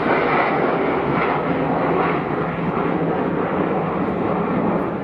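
Low-flying airplane passing overhead: a loud, steady rushing engine noise that eases slightly over the last couple of seconds.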